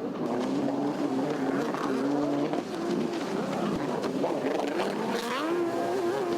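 Racing jet ski engines running, several machines at once, their pitch rising and falling as the throttles open and close.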